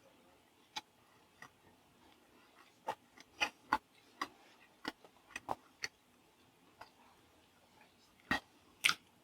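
Mouth chewing and tasting food: a dozen or so short, wet clicks and lip smacks, irregularly spaced.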